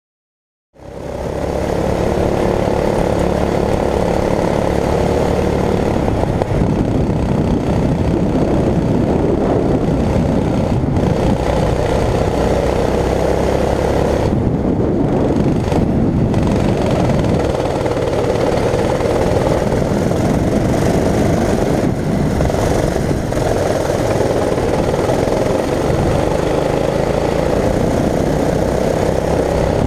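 Go-kart engine running steadily as the kart drives round the track, heard from on board. The engine sound comes in about a second in, after near silence.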